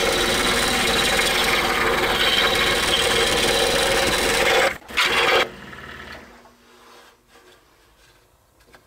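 Scroll saw with a reverse-tooth blade cutting through a thick pine block: a loud, dense, steady saw noise. It breaks off for an instant just before five seconds in, comes back briefly, and stops about five and a half seconds in, leaving only low background and a few faint clicks.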